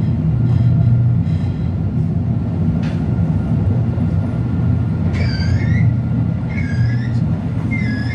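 Tram running with a steady low rumble. About five seconds in, its wheels give three short high squeals that rise and fall, each under a second.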